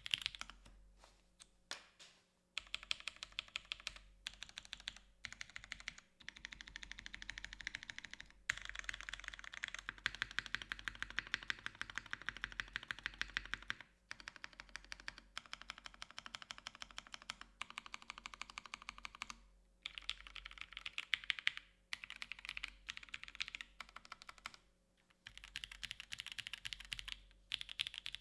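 Fast typing on a mechanical keyboard with Pewter switches on a carbon fibre plate: dense runs of sharp key clacks broken by brief pauses.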